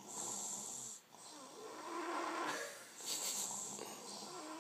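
Two sleepers snoring in turn: a hissing, airy snore breath at the start and again about three seconds in, with a lower, buzzing snore between them.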